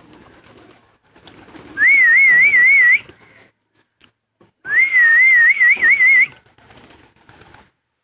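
A person whistling a warbling call twice, each about a second and a half long, to call homing pigeons in to their feed.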